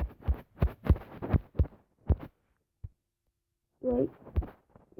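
A quick run of dull thumps, about four a second, lasting nearly two seconds, then stopping.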